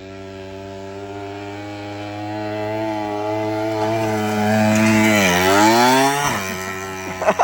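Mini bike's Predator 212 single-cylinder engine running at high revs, getting louder. About five seconds in its pitch dips and rises again, then it drops away, with a few sharp knocks right at the end.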